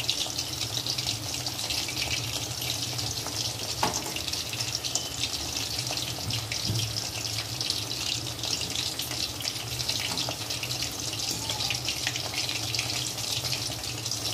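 Chicken pakoras deep-frying in hot oil in a kadai: a steady, crackling sizzle, with a light knock about four seconds in.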